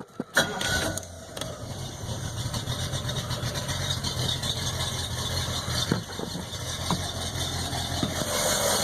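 Rebuilt Chevrolet 305 small-block V8 boat engine starting on the key, catching within about a second, then idling steadily in neutral.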